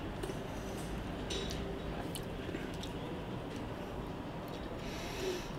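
Quiet room tone with a few faint clicks of a knife and fork on a plate.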